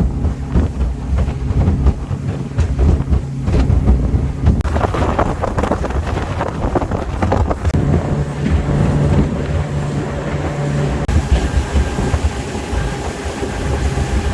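Low, continuous engine rumble with wind buffeting the microphone. A steadier low hum comes in about eight seconds in and drops away around eleven seconds.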